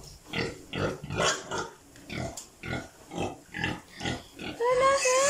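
An animal grunting over and over, about twice a second, then a longer drawn-out call near the end that falls in pitch.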